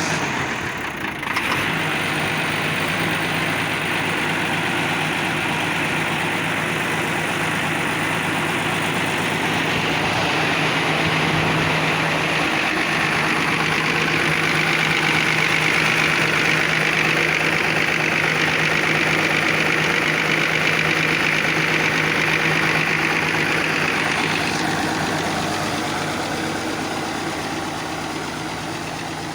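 An engine catching abruptly and then running steadily, a little louder mid-way and easing back near the end; it now runs after being troubleshot for hard starting.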